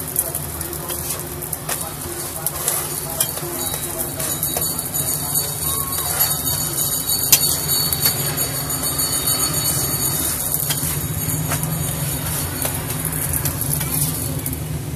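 Metal spatula scraping and tapping on a flat griddle as an egg-filled roti is turned and fries in oil, giving scattered sharp clicks. Underneath is a steady low hum of street noise.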